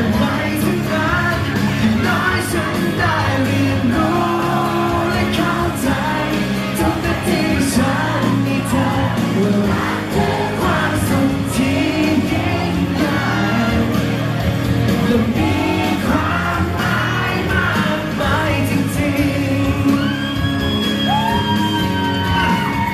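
A male singer singing a Thai pop song live through a handheld microphone over loud backing music with drums.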